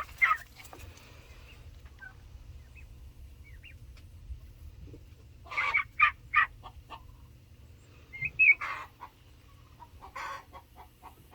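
Young chickens clucking in short scattered calls, with a quick run of calls about halfway through and a few more near the end, over a steady low hum.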